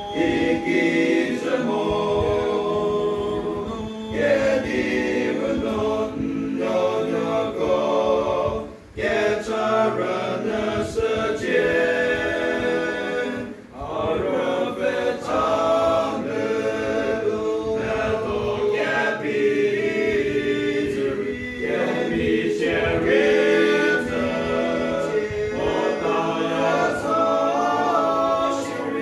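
Male voice choir singing unaccompanied, several men's voices together. The singing is steady, with short breaks between phrases about 9 and 14 seconds in.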